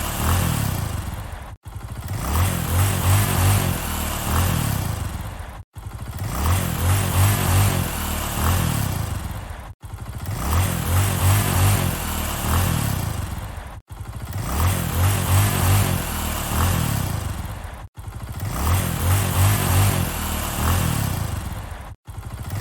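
Motorcycle engine revving in a run of quick throttle blips, its pitch then swinging down and back up. The same few seconds repeat about every four seconds, with a brief silent gap between repeats.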